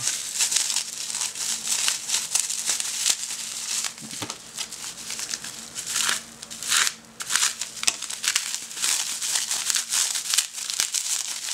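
Bubble wrap crinkling and rustling continuously in the hands as a phone wrapped in it is unwrapped, with many sharp crackles.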